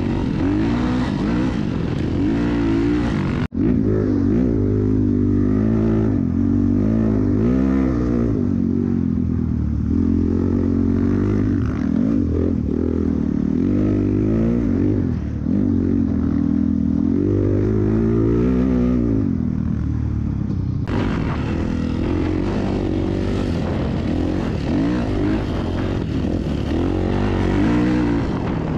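Off-road vehicle engine running under way, its pitch rising and falling again and again as it revs up and eases off, with a brief dropout about three and a half seconds in.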